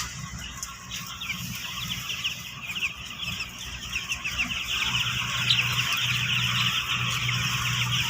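A flock of four-day-old broiler chicks peeping: a dense chorus of short, falling cheeps that grows louder about halfway through, over a steady low hum.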